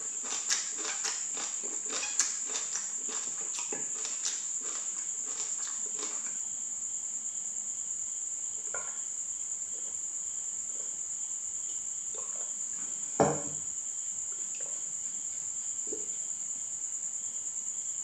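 Crisp crunching and chewing of raw water spinach stems, dense clicks for about the first six seconds, then only a few soft mouth sounds. About thirteen seconds in comes a single sharp knock, the loudest sound, as a drinking glass is set down on the wooden table. Under it all, crickets chirr in a steady high-pitched drone.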